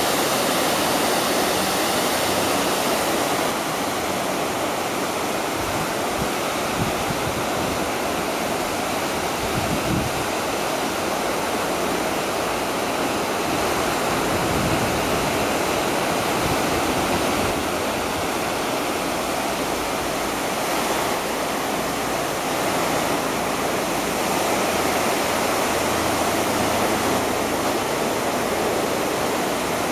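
9/11 Memorial reflecting-pool waterfall: water cascading in thin sheets down the pool's walls into the basin, a steady, even rushing.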